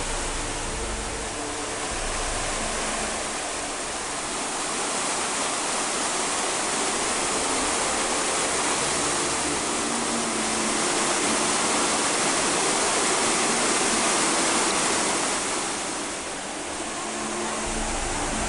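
White-water rapids of the Doubs river rushing over boulders: a steady, loud wash of water noise that swells a little midway and eases slightly near the end.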